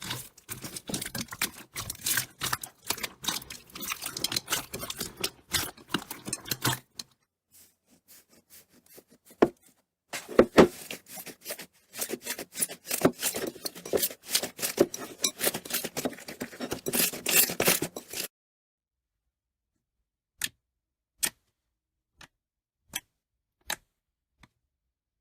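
Slime being squeezed and worked by hand, giving dense crackling and popping clicks. The crackling thins out about seven seconds in, picks up again, and stops after about eighteen seconds, leaving a few single sharp pops.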